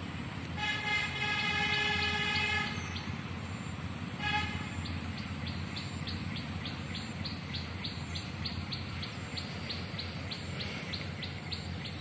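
A horn-like tone held steady for about two seconds, with a short second blast about four seconds in, then a bird calling in quick repeated chirps, about three a second, over a steady low background rumble.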